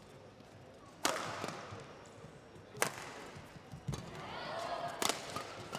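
Badminton rackets striking a shuttlecock in a fast doubles rally: four sharp hits about a second or two apart, the first the loudest.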